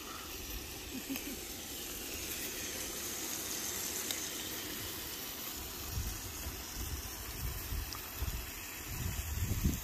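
Steady hiss of a gas canister camping stove burning under a steaming pot. From about six seconds in, low gusty rumbles of wind on the microphone join it.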